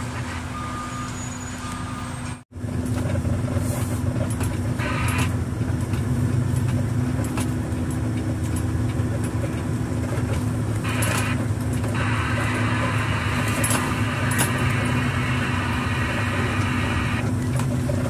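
Peterbilt dump truck's diesel engine running steadily at low speed, heard from inside the cab as a low drone. A short repeating beep sounds during the first second or two, and the sound cuts out for a moment about two and a half seconds in.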